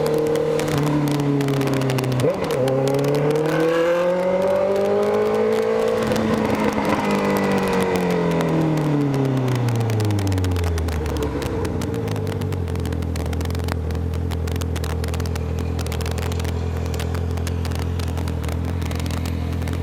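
Motorcycle engine speeding up for a few seconds, then dropping back and settling into a steady idle from about halfway through. A short knock sounds about two seconds in.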